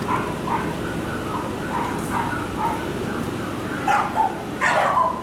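A dog barking in a quick string of short, high yaps, with louder barks near the end.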